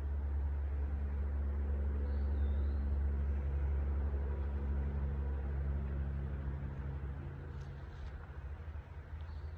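Low, steady engine or motor hum with a few steady tones over it, fading out about seven seconds in. A faint high chirp sounds about two seconds in.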